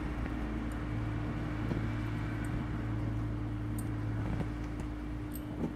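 Steady low hum in the room, with a few faint, sparse ticks as an aari hook needle is pushed through the cloth during embroidery.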